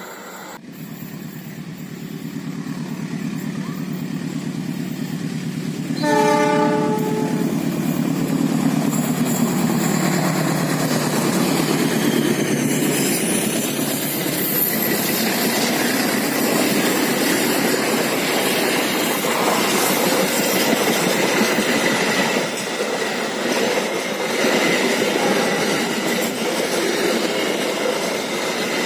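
Diesel-electric locomotive approaching, its engine drone building. It gives one short horn blast about six seconds in, then its engine pitch drops as it passes. Passenger carriages follow, rolling by with steady wheel-on-rail noise and clatter.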